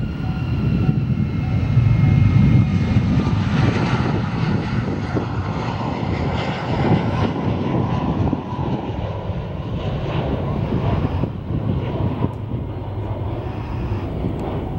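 Twin-engine jet airliner taking off and climbing away, engines at takeoff power. A steady roar carries a whining tone that falls in pitch over the first few seconds; it is loudest about two seconds in, then eases slightly.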